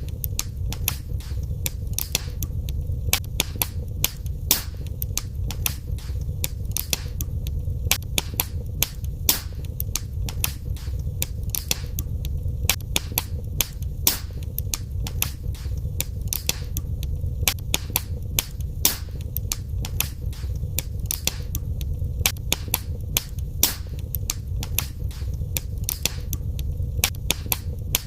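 Wood fire in a fireplace crackling and popping, with frequent sharp irregular pops over a steady low rumble of the flames.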